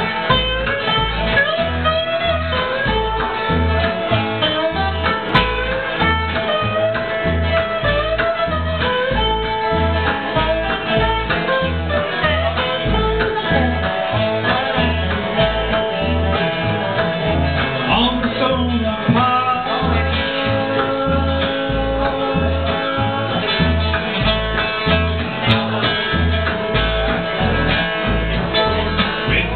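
Live acoustic bluegrass band playing: mandolin and acoustic guitar over an upright bass plucking a steady beat.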